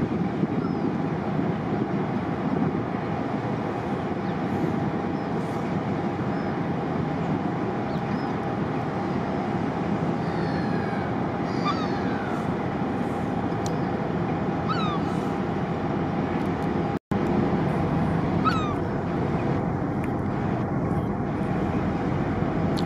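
Harbour tugs' diesel engines running steadily: a low rumble with a steady hum. Gulls give short falling calls now and then above it.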